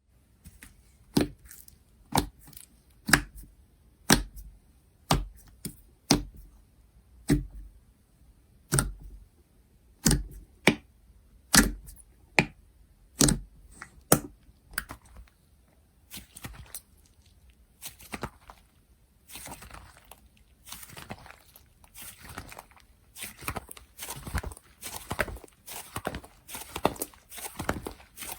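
Slime being pressed and worked by hand, giving sharp pops and clicks about once a second. About halfway through it changes to a denser, softer crackling.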